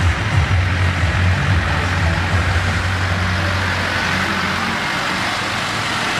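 Street noise at a carnival parade: a steady low hum that fades out about four seconds in, over a constant broad hiss.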